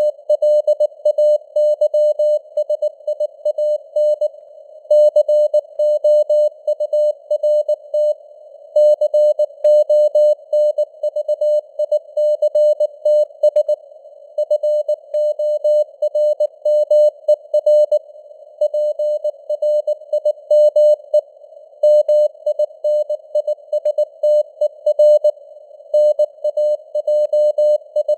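Morse code (CW) sent at 19 words per minute as a single mid-pitched tone keyed on and off in dots and dashes, with short gaps between words, over a narrow band of simulated radio hiss. It spells out news headlines for listening practice.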